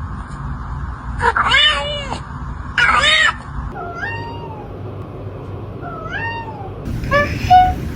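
Kitten meowing five times, each call bending up or arching in pitch.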